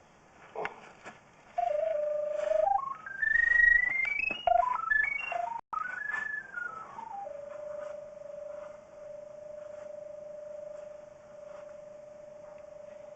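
Pipe locator receiver sounding its single electronic tone while sweeping for the sewer camera's sonde: the pitch steps up and down in jumps, climbing high as the signal strengthens, then settles on a steady low tone from about seven seconds in.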